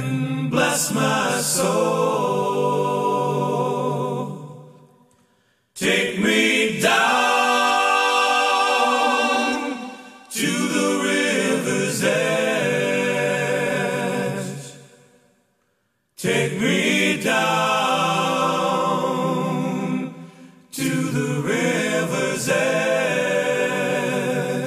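Music: voices singing in harmony with little or no instrumental backing, in long held phrases of about four to five seconds separated by brief pauses.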